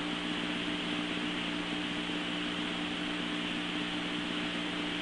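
Steady hiss of radio static with a faint low hum beneath it, on an FDNY dispatch radio recording between transmissions.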